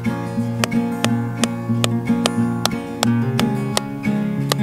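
Background music: acoustic guitar strumming chords to a steady beat.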